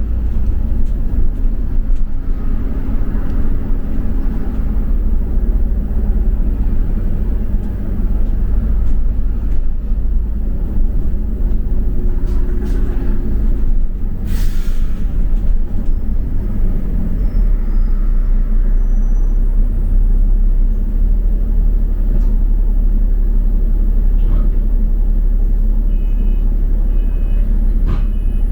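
Double-decker bus heard from inside, with the steady low rumble of its engine and the road. There is a short hiss about halfway through and a few faint short beeps near the end.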